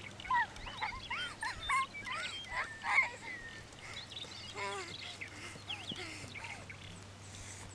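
Birds calling across an open field: many short, arching chirps and a quick trill, busiest in the first few seconds and again about halfway through.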